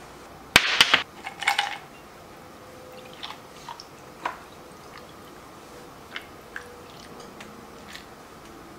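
A loud clatter of ice cubes in a glass tumbler about half a second in, with a second burst of clinks just after, then scattered small clinks and cracks of the ice as vodka is poured over it.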